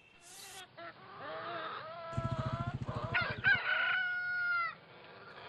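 Rooster crowing: pitched calls from about a second in build into one long crow that holds and drops away about four and a half seconds in. A low, fast pulsing sound runs under it in the middle.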